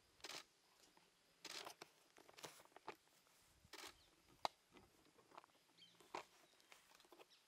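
Faint, soft crunches about once a second, with one sharp click about halfway through.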